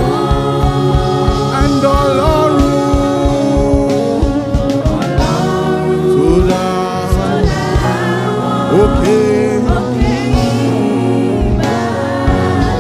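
Live gospel praise music: voices singing over a band with keyboard chords and a steady drum beat.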